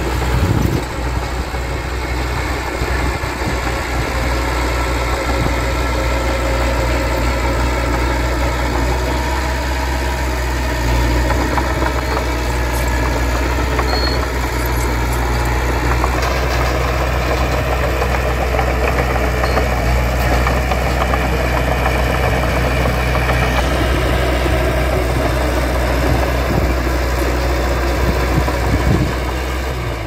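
Diesel engine of heavy earthmoving equipment running steadily, a continuous low engine note with mechanical clatter on top that grows busier about halfway through.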